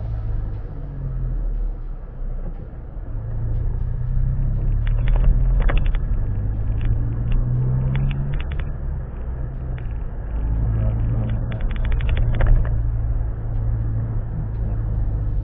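Motor vehicle running with a steady low rumble, its engine note shifting slightly. Short runs of rapid clicking come three times: about five, eight and twelve seconds in.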